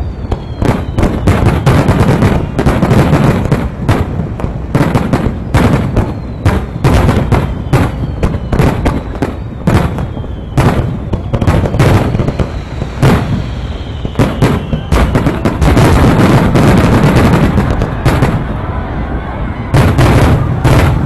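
Aerial fireworks shells bursting in a rapid, dense barrage, the finale of a fireworks display: overlapping booms and sharp reports with a constant rumble, and a few faint falling whistles.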